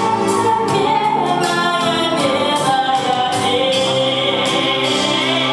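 A woman singing a ballad-style pop song live into a handheld microphone, over instrumental accompaniment with a steady beat.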